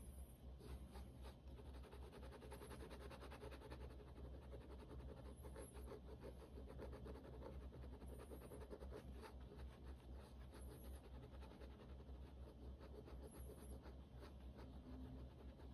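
Faint, rapid scratching of a pen on sketchbook paper as many quick short hatching strokes are drawn, over a low steady hum.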